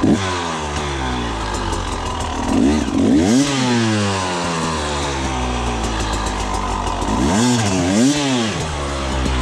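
Husqvarna 300 TE's two-stroke single-cylinder engine running, its revs sagging slowly at first, rising and falling once about three seconds in, then blipped twice in quick succession near the end.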